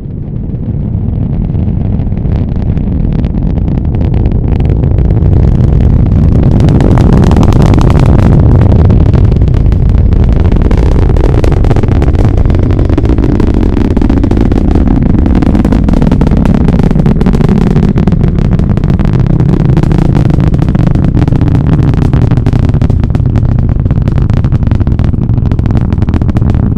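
Falcon Heavy rocket launch heard from a few miles away: a loud, deep rumble with crackling that builds over the first several seconds, peaks about eight seconds in, then holds steady.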